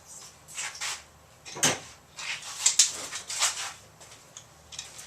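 Short rustling and clicking handling noises from working on the extension cord's wires and plug, a few irregular clicks with one sharper knock about one and a half seconds in.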